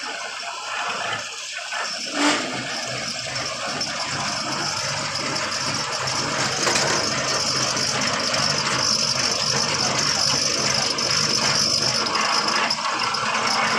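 Engine of a sand piling rig running steadily, with a single sharp knock about two seconds in.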